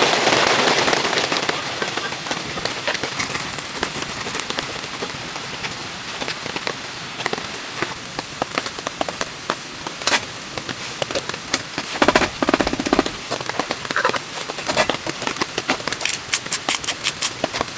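Food sizzling in hot oil: a loud hiss that swells in the first second, then settles into a steady sizzle with many sharp pops and spits, which crowd together about twelve seconds in.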